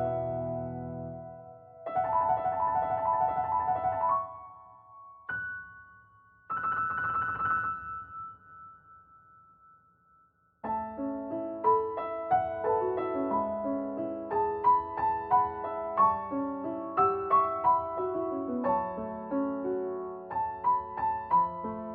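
Background piano music: a few held chords, a short pause about ten seconds in, then a steady run of light, quick piano notes.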